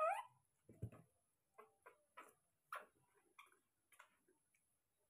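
A baby macaque gives a brief squeak with a bending pitch, then faint, irregular clicks and taps of spoon-feeding: a spoon against a small plastic cup of porridge as the monkey eats.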